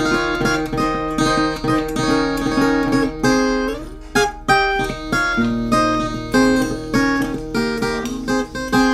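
Background music: acoustic guitar playing plucked notes and chords.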